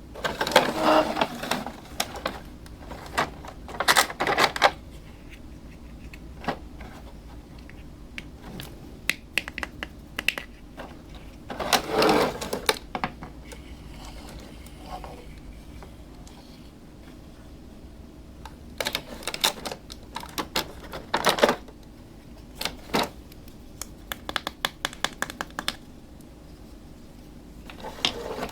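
Small plastic toy pieces clicking and clattering as they are handled, in several short bursts of rapid clicks separated by quiet pauses.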